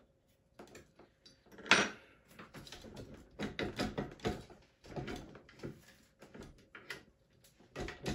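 Clicks and knocks of a Ninebot Max electric scooter's folding stem and its mounting parts being handled and lifted, with one sharper knock about two seconds in and a quick cluster of clunks a little later.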